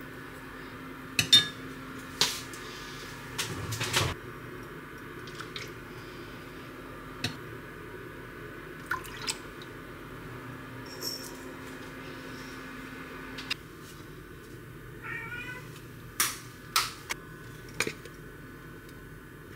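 Sharp clinks and taps of a spoon and bottles against a cast-iron pot, the loudest about a second in. About three-quarters of the way through, a pet cat meows a few short, rising meows asking for attention.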